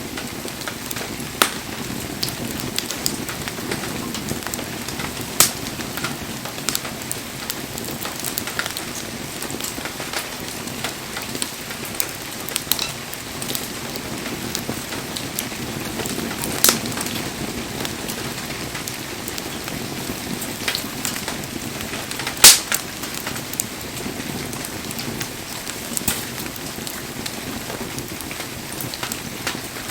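Firewood bonfire crackling: a steady hiss of burning wood with frequent sharp pops and snaps, a few of them much louder, the loudest about two-thirds of the way through.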